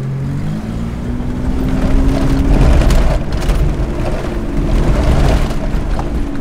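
Mitsubishi Montero SUV engine heard from inside the cabin while driving over a rough dirt trail. Its pitch rises over the first couple of seconds as it pulls, then holds fairly steady under a heavy low rumble. There are scattered knocks and rattles about halfway through.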